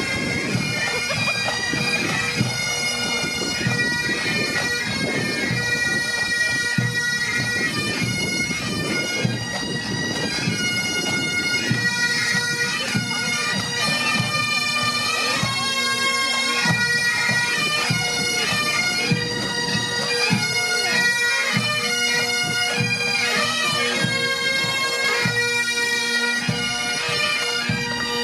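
Bagpipes playing a marching tune over their steady drones.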